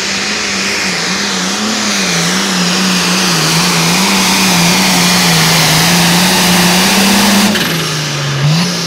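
Modified International 1466 pulling tractor's diesel engine running flat out under load as it drags the sled, its note wavering slightly. About seven and a half seconds in, the throttle comes off and the engine note drops.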